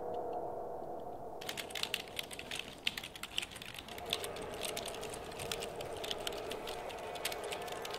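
Fast typing on a computer keyboard: a quick, irregular clatter of key clicks that starts about a second and a half in and keeps going, over a steady low drone.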